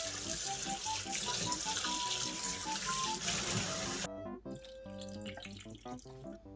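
Water running hard from a tap into a sink, shut off abruptly about four seconds in, over light background music with a plucky melody.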